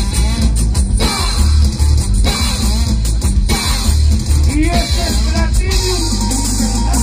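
Live Latin dance orchestra playing through a concert PA, with a heavy, pulsing bass beat under a horn section and guitar.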